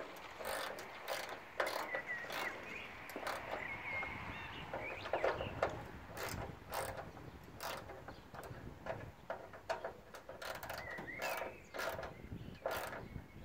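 Irregular clicking and rattling of a hand tool and screws as the grille's fastening screws are tightened from under the hood.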